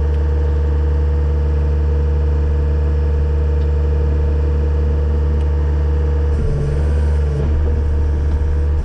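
John Deere 333G loader's diesel engine running steadily; about six and a half seconds in its note wavers and shifts for roughly a second, then settles back.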